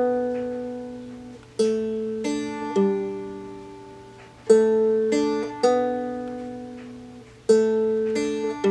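Seagull Merlin, a four-string dulcimer-style instrument tuned D-A-D-D, picked one string at a time to play a short intro riff. The notes come in repeating groups of three, each ringing out and fading.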